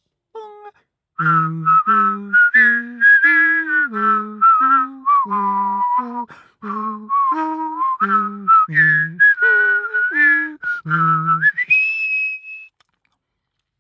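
A person whistling a railway chime melody while voicing a lower part at the same time, two lines in short, quickly changing notes. Near the end the voice stops and the whistle slides up to a held high note.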